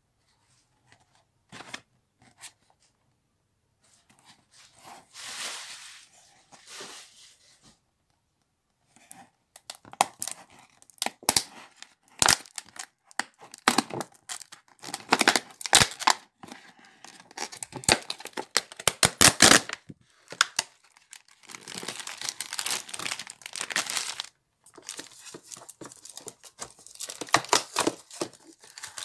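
Pink plastic toy packaging being torn open and crinkled by hand. A few soft rustles come first. From about nine seconds in there is dense crackling with many sharp snaps of the plastic.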